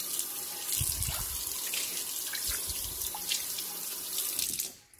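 Kitchen tap running onto a cast iron skillet as soapy water is rinsed off it in a sink: a steady splashing hiss with a few low bumps as the pan is handled. The water sound cuts off shortly before the end.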